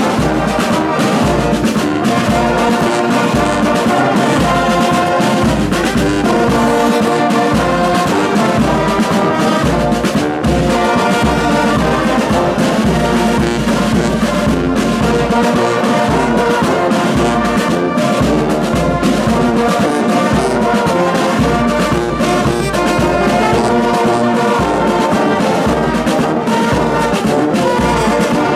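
Brass band of trumpets, trombones, euphoniums and tubas with a bass drum, playing a tune together over a steady low beat.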